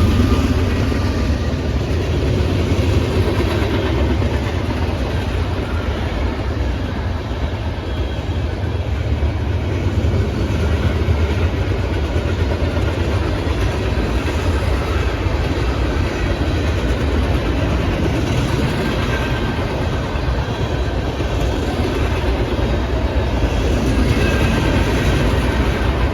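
A train running along the track, a steady sound that stays even throughout and is heaviest in the low range.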